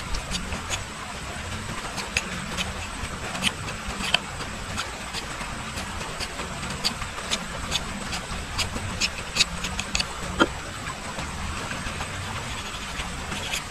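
Knife shaving and whittling a thin strip of bamboo: short, irregular scraping clicks, about one or two a second, with a louder one about ten seconds in, over a steady low rumble.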